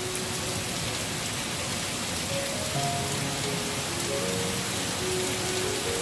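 Steady rain, a dense even hiss, with soft music of slow held notes playing underneath.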